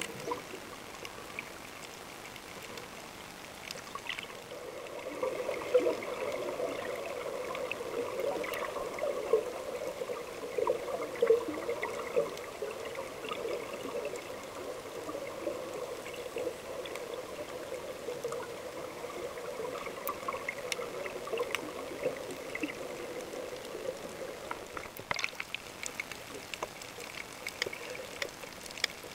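Underwater ambience picked up through a camera's housing while snorkelling: a steady watery rushing with scattered small clicks.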